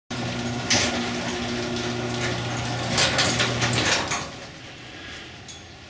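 Garage door opener running, a steady motor hum with rattling, with a clack near the start and another about three seconds in; it stops about four seconds in.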